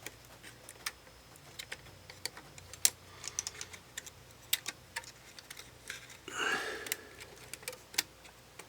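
Small, irregular clicks and taps of hand tools against the parts of an opened DSLR as a flex cable is worked toward its connector.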